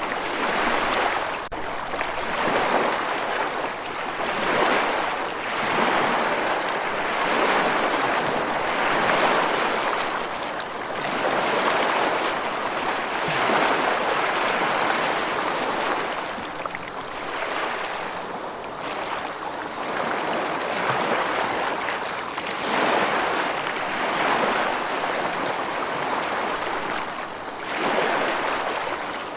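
Rushing water, a steady hiss that swells and ebbs every two to three seconds.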